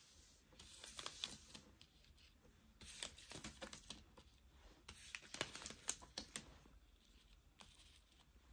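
Paper tea sachets being handled, flipped over and laid out on a wooden desk: faint crinkles and light taps in a few short clusters, dying away near the end.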